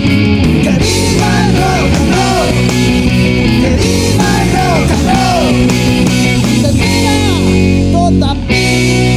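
Rock band playing: electric guitars, bass guitar and drums, with a melody line that bends up and down in pitch over a steady beat.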